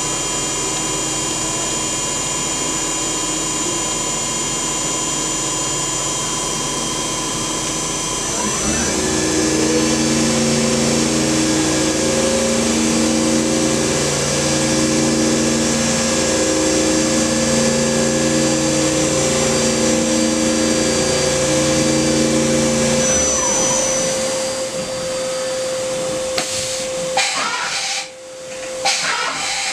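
CNC vertical mill spindle running with a steady whine. About a third of the way through it speeds up with a rising whine, runs faster with a louder, pulsing hum, then winds down with a falling whine. A few sharp knocks come near the end.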